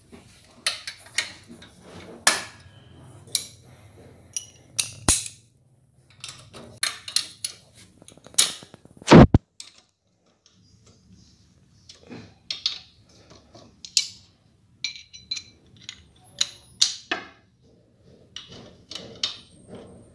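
Metal clicks and clinks of a socket wrench tightening the front exhaust-pipe bolts of a motorcycle, irregular and unevenly spaced, with one louder knock about nine seconds in and a short pause after it.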